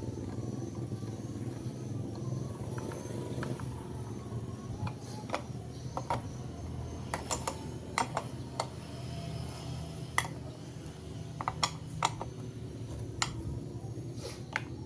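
Scattered sharp metallic clinks and taps of small metal parts and hand tools being handled, over a steady low hum.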